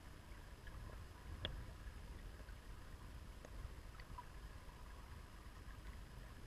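Faint underwater sound of a shallow river flowing over a stony bed, heard through a submerged camera: a low rumble with a few scattered soft ticks, the clearest about a second and a half in.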